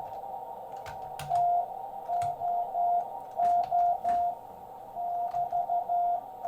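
Morse code (CW) on a ham radio transceiver: a single steady beep keyed on and off in dits and dahs, over a hiss of shortwave band noise, with a few faint clicks.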